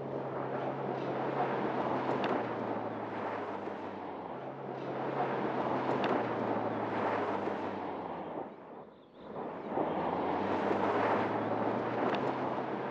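Mercedes-Benz GLC SUV driving on a dirt track: engine hum under rumbling tyre noise on loose dirt, swelling and fading as the car passes, with a brief drop about nine seconds in.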